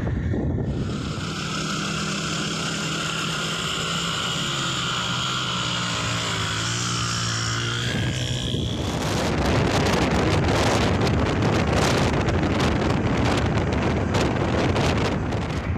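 Road noise from a moving vehicle: a steady engine hum with a high whine for the first half, then from about nine seconds in louder, gusty wind rumbling on the microphone.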